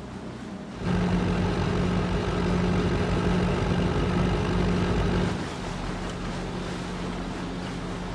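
A boat engine running with a steady low hum. It cuts in abruptly about a second in, stays loud for about four seconds, then drops to a lower, steady level.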